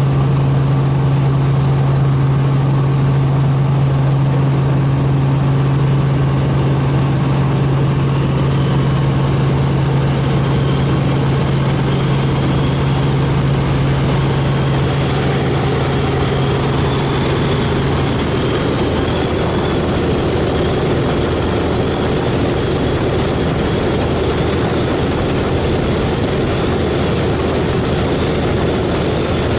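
Robinson R44 helicopter cabin noise in flight: the piston engine and rotors drone steadily. A strong low hum drops away about two-thirds of the way through, leaving a steady rushing noise.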